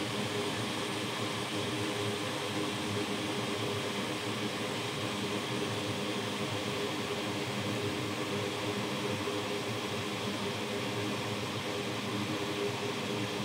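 Steady airy whir with a constant low hum, from a hot air rework station blowing hot air onto a chip to melt its solder so that it can be lifted off the board.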